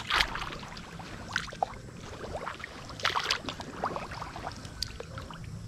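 Feet wading through shallow muddy water: irregular splashes and sloshes every second or so, the loudest about three seconds in.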